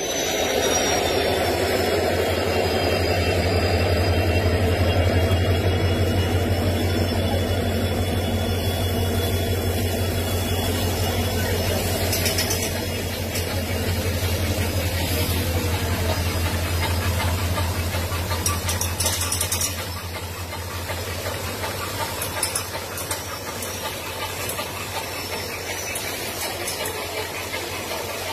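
Steady, pulsing low engine rumble of a train moving slowly through an automatic coach-washing plant. A faint high squeal falls slowly in pitch during the first few seconds.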